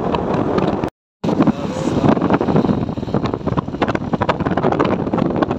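Wind buffeting the microphone on a moving motorcycle, with its engine running underneath. The sound cuts out completely for a moment about a second in.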